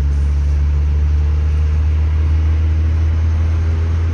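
Steady, loud low rumble of a car driving, heard from inside the cabin: engine and tyre noise.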